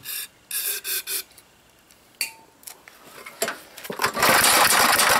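A few short hisses of aerosol carburetor cleaner sprayed into the intake of an old 3,000-watt gasoline generator engine, then a loud stretch over a second long as the recoil starter is pulled and the engine cranks and sputters on the cleaner, a sign that it has spark.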